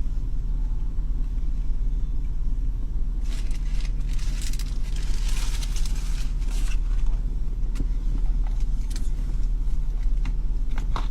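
A car's engine idling in a steady low hum, heard from inside the cabin, with brief rustling noises about three to seven seconds in.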